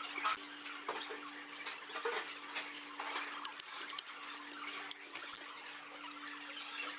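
Metal utensils clinking and scraping against a stainless steel bowl as the food in it is stirred, a scatter of small light clicks, over a steady low hum.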